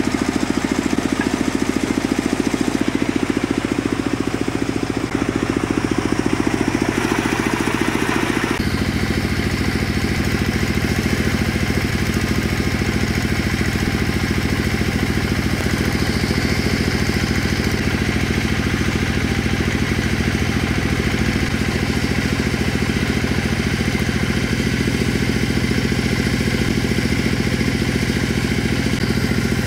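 Tractor engine running steadily, driving a well-drilling rig as drill pipes are pulled out of the borehole. The sound changes abruptly about eight and a half seconds in.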